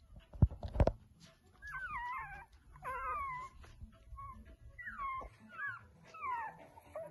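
Three-week-old puppy whimpering: a string of short, high whines that bend up and down in pitch. Two sharp knocks come near the start.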